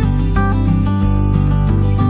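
Background music: a strummed acoustic guitar track.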